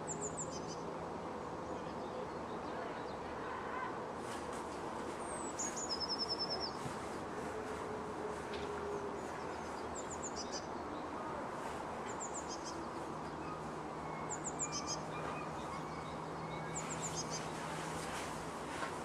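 Small songbirds give short, high chirps every couple of seconds, with a quick run of high notes about six seconds in. Underneath is a steady distant city hum.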